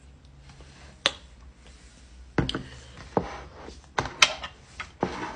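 Tableware clatter: a syrup bottle set down and a fork and plate handled, several sharp knocks and clinks spread out, the sharpest about a second in and about four seconds in.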